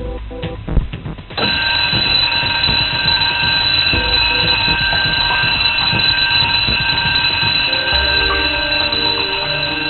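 A ship's watertight door warning alarm starts suddenly about a second and a half in, just after the door's local push-button is pressed, and rings on steadily. It signals that the sliding watertight door is being operated.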